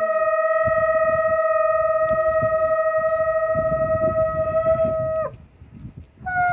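Traditional long curved horn blown in one long steady note, which sags in pitch and breaks off about five seconds in, then is blown again just before the end.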